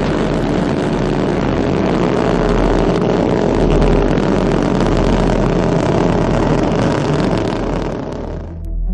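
Space shuttle launch: the steady, noisy roar of its rocket engines as the vehicle climbs, which cuts off abruptly near the end.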